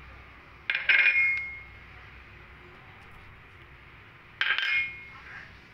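Small kitchen dishes clinking twice as spice bowls are handled and tipped over raw chicken: a short clatter with a brief ring about a second in, and another a little before the end.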